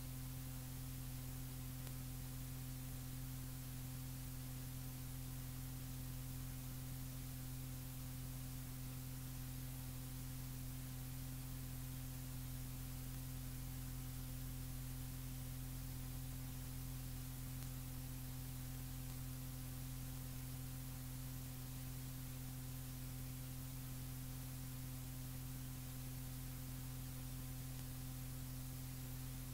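Steady electrical mains hum with a constant hiss from the tape recording, with no other sound.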